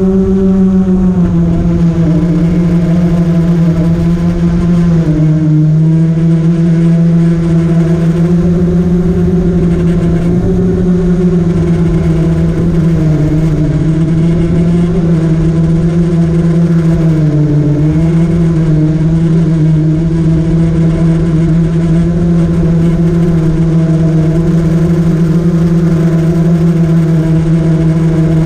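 Multirotor drone's electric motors and propellers buzzing steadily and loudly, the pitch dipping briefly now and then as the craft adjusts its flight.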